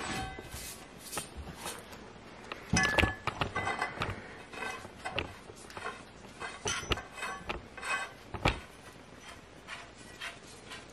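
Steel pipe with a round end plate being picked up and handled, giving scattered metallic clinks and knocks; the loudest knocks come about three seconds in and again about eight and a half seconds in.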